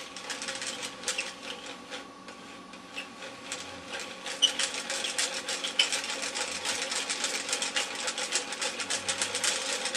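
Hand-cranked Skip Doctor disc repair device being turned: its gears click rapidly as the abrasive wheel sands a scratched disc, the clicking getting louder and denser about four seconds in.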